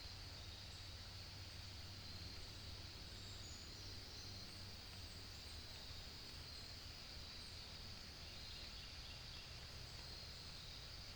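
Faint woodland ambience: a steady high-pitched insect drone, with a few faint bird chirps over it and a low rumble underneath.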